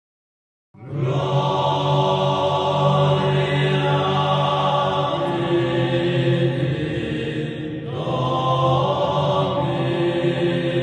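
Intro music of low, droning chanted voices holding long notes. It starts about a second in and breaks off briefly a little past two thirds of the way through.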